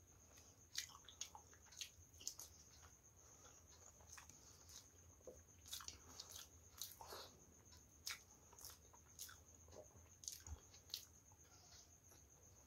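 Close-miked chewing: quiet, irregular wet clicks and smacks of a mouth eating, with soft squishing as curry-soaked rice is mixed by hand.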